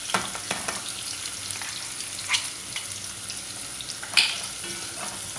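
Chopped onion, ginger and garlic sizzling in hot oil in a pot, stirred with a wooden spatula that clacks and scrapes against the pot a few times, the loudest clack about four seconds in.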